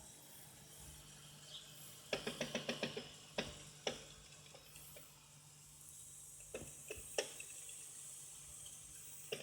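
Arçelik No Frost refrigerator making its 'tak tuk' tapping noises over a faint steady hum: a quick run of about eight clicks a little after two seconds in, then scattered single clicks. The owner does not know what fault these sounds point to; the fridge is still cooling well.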